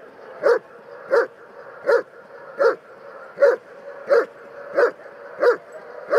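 German Shepherd Dog guarding a protection helper and barking at him in an even, unbroken run, about three barks every two seconds.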